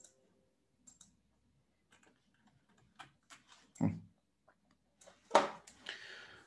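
Scattered clicks and keystrokes on a computer keyboard and mouse, with two louder knocks, one about four seconds in and one about five and a half seconds in.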